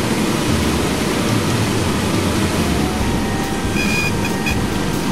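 Cessna 152's four-cylinder Lycoming engine and propeller running at low power, a steady drone heard from inside the cockpit as the aircraft rolls along the runway.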